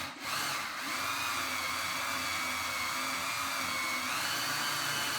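Motor-driven copper wire stripper machine running as cable is fed through it: a steady whine that rises slightly in pitch about four seconds in.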